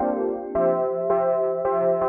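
Background music: keyboard chords struck about twice a second.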